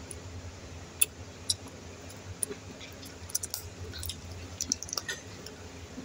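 Close-up chewing with wet mouth clicks and smacks from eating chicken feet, scattered sharp clicks at about one second and a second and a half in, then a busier run of them from three to five seconds in, over a low steady hum.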